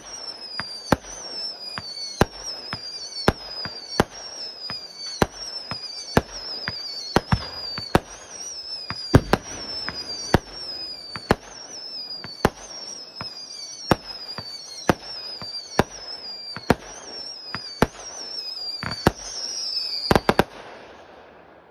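Fireworks display: aerial shells going off about once a second, each bang followed by a high whistle that falls in pitch. Near the end comes a quick cluster of bangs, then the volley stops.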